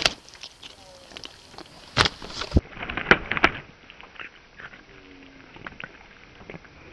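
A carp thrashing in a man's hands, its body and tail slapping against his palms in a few sharp slaps, loudest about two seconds in.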